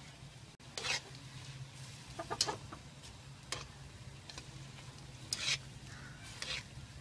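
Steel slotted spatula scraping and stirring noodles in a black iron kadhai: six or so short scrapes about a second apart, over the steady low hum of the gas burner.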